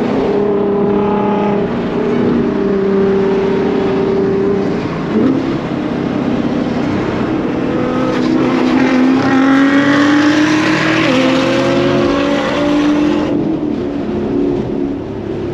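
Car engine pulling hard under acceleration, most likely the Camaro ZL1 1LE's supercharged V8. Its pitch drops at a gear change about five seconds in, then climbs steadily for several seconds before the throttle comes off near the end.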